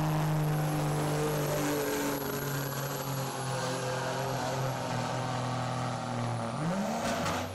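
Pulling truck's engine running hard under load during a pull. Its pitch drops a step about two seconds in and rises sharply near the end, with a steady high whine over it.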